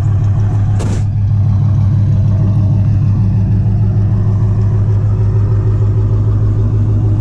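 Chrysler 300C's 5.7 L Hemi V8 idling steadily, heard at the tailpipe through newly fitted stainless long-tube headers. There is a brief tap about a second in.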